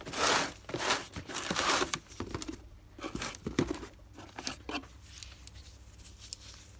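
Rustling and crinkling of cardboard and nitrile gloves as a hand rummages in a cardboard parts box, loudest in the first two seconds, then lighter clicks and handling noise as a power steering pump shaft with its ball bearing is picked up.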